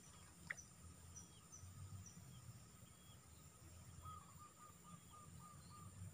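Faint outdoor ambience: small birds giving repeated short high chirps over a steady high insect drone and a low rumble. A single sharp click comes about half a second in, and a quick run of short, lower calls follows around four seconds in.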